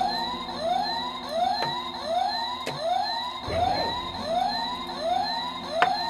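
Electronic siren-like alarm: a short rising whoop repeated about twice a second over a steady low drone, with a few sharp clicks.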